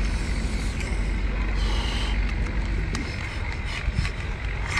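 Steady low outdoor rumble, with a few faint clicks as a cooked red crab's shell and legs are broken apart by hand. A brief high squeak comes about two seconds in.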